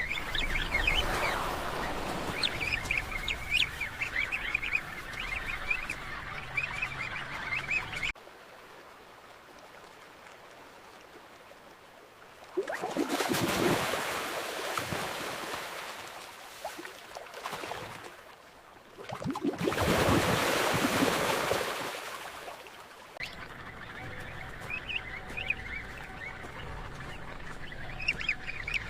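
Penguin colony calling, a dense honking chatter that cuts off suddenly about eight seconds in to a muffled underwater hush. Two surging rushes of water follow, and the calling comes back for the last few seconds.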